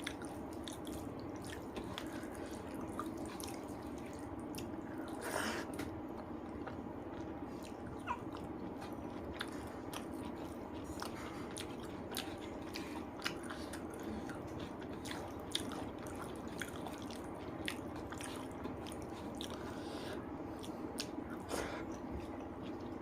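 Close-miked chewing and mouth sounds of someone eating rice and spicy chicken curry: frequent small wet clicks and smacks, a louder one about five seconds in, over a steady background hum.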